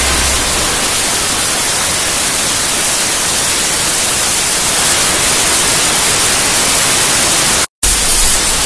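Very loud static: a harsh, even hiss of white noise with no tone in it, dropping out for a split second near the end.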